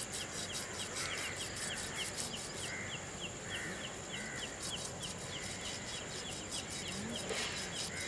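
A knife scraping the scales off a rohu fish, in rapid, repeated rasping strokes.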